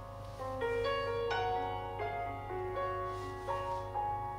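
Background instrumental music: a gentle keyboard-like melody of single notes following one another every half second or so, over a steady low hum.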